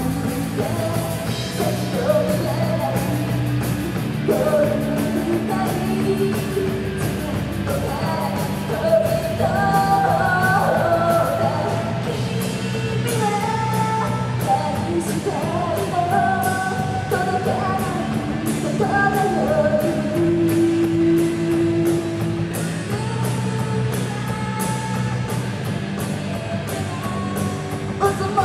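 Live rock band playing a song: female lead vocal over electric guitars and a drum kit, amplified through a PA.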